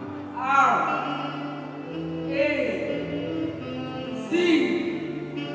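Singing over held instrumental chords: a voice comes in about every two seconds with a phrase that slides down in pitch.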